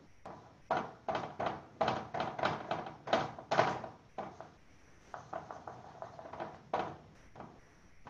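Pencil scratching across paper in many quick, short strokes as a drawing is detailed by hand, with a short lull around the middle.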